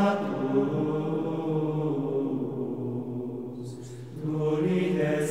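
Background music of chanted singing, voices holding long sustained notes, with a short break and a new phrase beginning about four seconds in.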